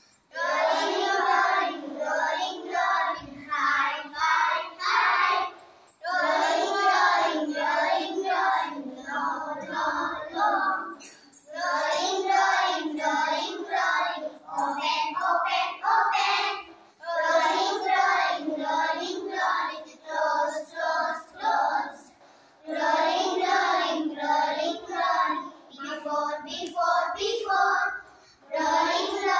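A class of young children singing an action song together in unison, in phrases of about five seconds, each followed by a brief pause.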